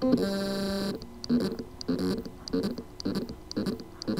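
Western Digital Caviar Green 2TB hard drive's spindle motor trying to spin up: a steady electronic buzzing tone for about a second, then short buzzing pulses about three times a second. The motor cannot reach full speed because of loose motor contacts on the drive's circuit board.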